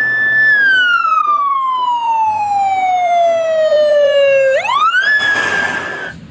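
Electronic ambulance siren wailing: a quick rise to a high note, a slow fall over about four seconds, then another quick rise and hold before it cuts off.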